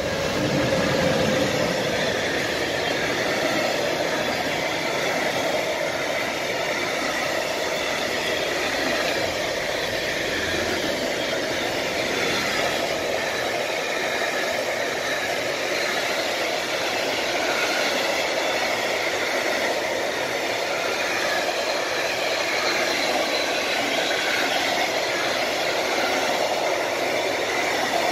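Electric-hauled intermodal freight train passing close by: a steady rolling noise of wheels on the rails, loudest about a second in as the locomotive goes by, then long carrier wagons loaded with truck trailers rolling past.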